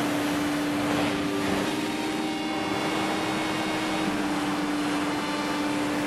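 Sea waves breaking and washing against a stone seawall, under a steady low droning hum that shifts pitch in small steps a few times.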